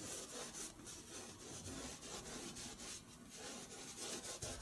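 Bristle brush scrubbing oil paint onto stretched canvas in a run of short back-and-forth strokes, faint and scratchy.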